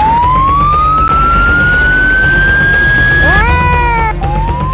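A siren wailing in long, slow upward rises over background music. About three and a half seconds in, a short chord of swooping tones cuts in, then the rising wail starts again.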